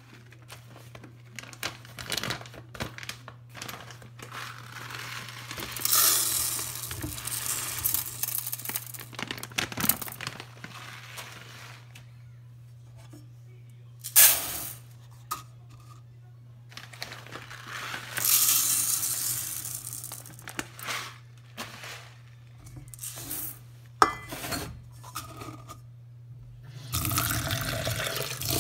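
Raw rice scooped with a plastic measuring cup and poured into a rice cooker's inner pot: the dry grains hiss and rattle in several pours, with two sharp knocks of the cup against the pot. Near the end a tap starts running water into the pot.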